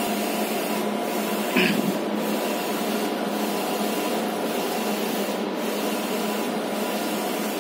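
Goldtech 5 ft eco-solvent wide-format printer running as it prints, a steady whirring hum with brief regular dips about once a second as the print-head carriage travels back and forth. A short sharp sound stands out about a second and a half in.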